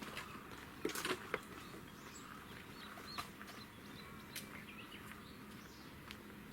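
Small birds chirping in short scattered calls, with a few sharp clicks, the loudest about a second in, over a low steady hum.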